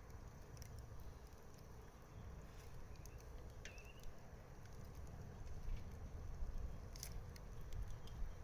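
Wood bonfire crackling: scattered sharp pops over a steady low rumble, with the loudest pop about seven seconds in. A brief high chirp comes about three and a half seconds in.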